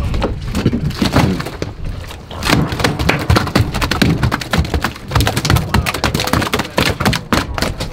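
Rapid knocks, slaps and thuds of fish being thrown onto and handled on a boat's deck as the catch is sorted, growing busier about two and a half seconds in.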